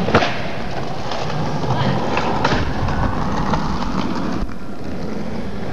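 Skateboard wheels rolling on concrete pavement, a steady rumble, with a sharp clack just after the start.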